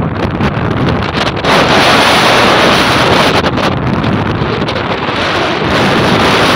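Strong wind buffeting the phone's microphone over the rush of waves in a rough, storm-tossed sea, growing louder about a second and a half in.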